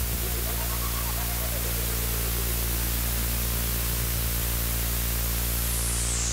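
Electronic band's synthesizer playing a steady white-noise wash over a sustained low drone. Near the end a filter starts to sweep the noise downward.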